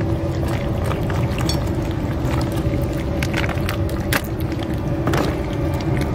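Cats chewing and crunching dry kibble at a metal dish, a run of sharp, irregular clicks and crunches, over a steady low rumble and hum.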